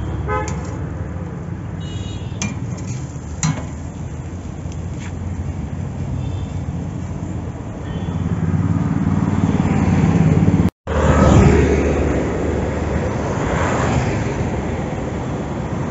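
Roadside traffic noise: a steady rumble of passing vehicles, with a few sharp clicks and short high toots in the first few seconds. It grows louder about eight seconds in and cuts out for an instant near eleven seconds.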